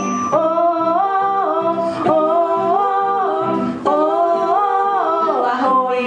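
A woman singing a simple pop melody into a microphone, phrase after phrase stepping up and down in pitch, over sustained electronic keyboard chords.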